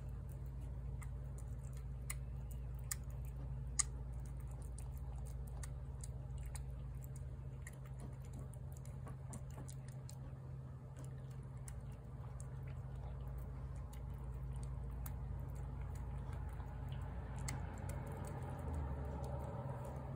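A cat eating wet canned food from a plate: faint, irregular wet clicks of chewing and lapping, with one sharper click about four seconds in, over a steady low hum.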